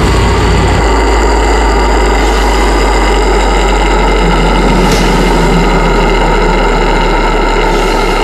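One long, loud, unbroken harsh metal scream in deathcore style, held steady and heavily distorted.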